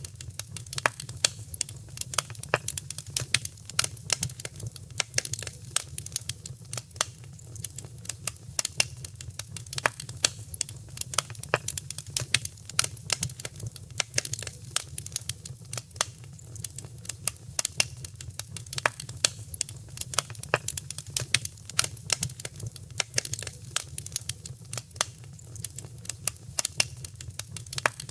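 Fire crackling in a fireplace: frequent, irregular sharp pops and snaps over a steady low rumble.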